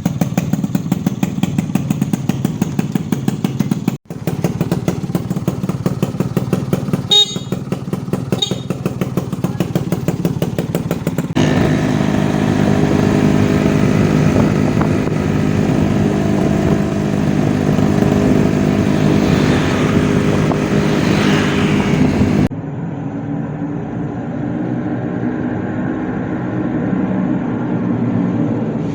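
Rebuilt Yamaha Alfa motorcycle's two-stroke engine running, at first with quick even pulses, then steadier with a rise in pitch like a light rev. The sound cuts off briefly about four seconds in and changes abruptly about two-thirds of the way through, like joined recordings.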